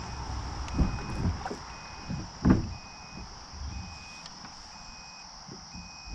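Electronic beeping at one steady pitch, a half-second tone about once a second, over a constant high buzz of insects. A few dull knocks sound in the kayak, the loudest about two and a half seconds in.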